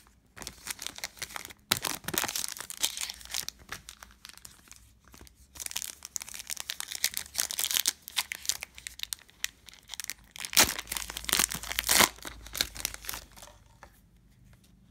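A Panini Prizm basketball card pack's foil wrapper being torn open and crinkled by hand. The crackling comes in irregular runs with a few sharper rips, and dies away about a second before the end.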